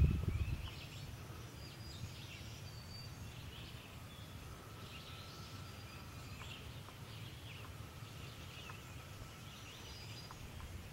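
Forest birds chirping and whistling, scattered short calls over a steady low outdoor rumble, with a brief louder low rumble on the microphone at the very start.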